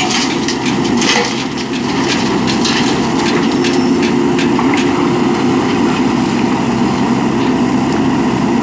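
JCB 3DX backhoe loader's diesel engine running steadily under work, with a rapid clatter of gravel and stones over the first half.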